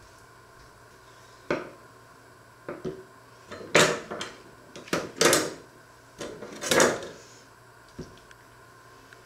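Kitchen utensils being handled on a wooden counter and cutting board: a string of irregular knocks, clatters and short scrapes as a knife and carving fork are picked up and set against the wood, the loudest about four, five and seven seconds in.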